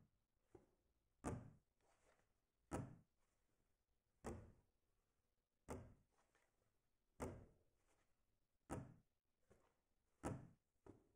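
A slow, even series of sharp knock-like hits, seven of them about a second and a half apart, each dying away in a short ring, with a fainter hit following a few of them.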